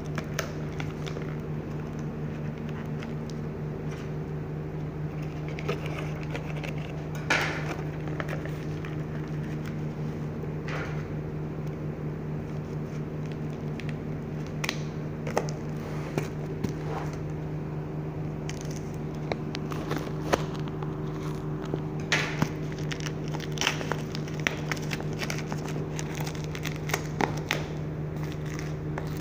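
Plastic shrink wrap being slit with a utility knife and peeled off a cardboard box, giving scattered crackles and crinkles that grow busier in the second half. A steady low hum runs underneath.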